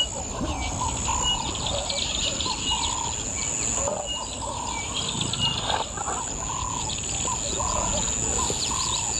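Bush ambience of several birds calling over a steady high insect drone: one bird repeats short arched notes about once a second, and others give brief high chirps.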